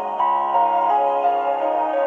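Instrumental backing music with no singing: a slow melody of held notes over sustained chords.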